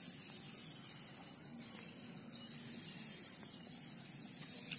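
Crickets chirping in a steady, high-pitched chorus with an even pulsing rhythm.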